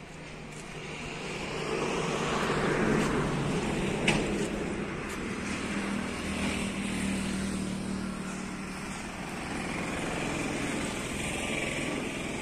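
Motor vehicle traffic running by, an engine hum with road noise that swells about two seconds in and stays up, with one sharp click about four seconds in.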